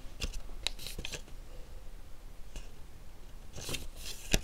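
Paper pages of a booklet being handled and turned: short rustles and crisp clicks in two clusters, about a second in and again near the end, ending with a sharp tap.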